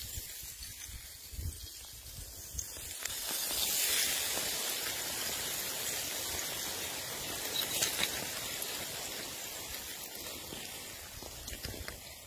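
Small sluff avalanche of loose snow sliding down a snow gully: a steady hiss that swells about four seconds in and slowly dies away toward the end.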